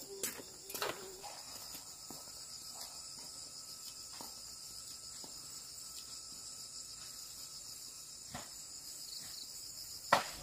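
A steady, high, shrill chorus of insects chirring with a fine rapid pulse, with a few faint clicks.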